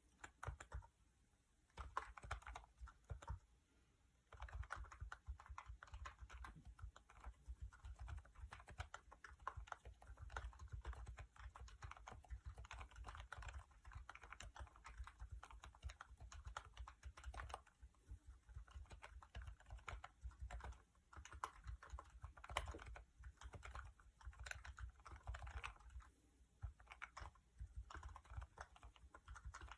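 Typing on a 3D-printed split concave keyboard with Niz sliders over rubber DES domes and hall-effect sensing: quiet, low-pitched keystrokes in a dense, steady stream, with a couple of short pauses in the first few seconds.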